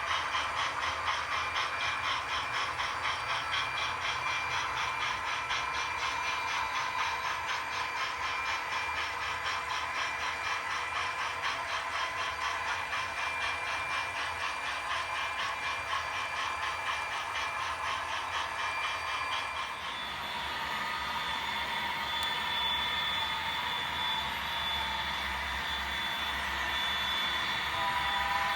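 HO scale model freight train running: model diesel locomotives and rolling cars, with a fast, even pulsing in the sound. About twenty seconds in, the pulsing gives way to a steadier sound with a high, steady whine.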